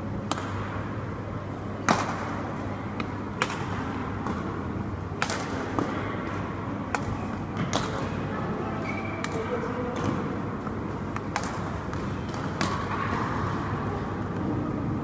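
Badminton rackets striking a shuttlecock in a rally: sharp, crisp hits about every second and a half, over a steady low hum in the hall.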